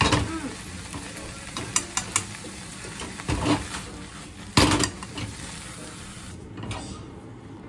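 Pork, egg and garlic chives stir-frying in a pan: a steady sizzle, with wooden chopsticks clacking against the pan and several sharp knocks, the loudest as the pan is tossed a little past halfway. The sizzle thins out near the end.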